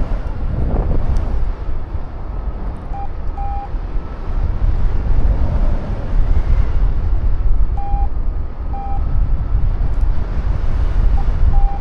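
Strong wind buffeting the microphone in flight: a loud, steady rumble. A few short single-pitch beeps come through it, typical of a paragliding variometer, in a pair about three seconds in and again around eight seconds and near the end.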